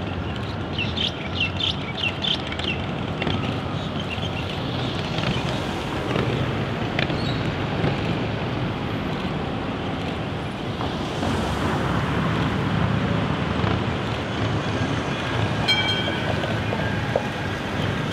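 A2-class Melbourne tram rolling slowly along street track amid passing car traffic, with wind buffeting the microphone. A run of quick high chirps comes about a second in, and a short high-pitched squeal comes near the end.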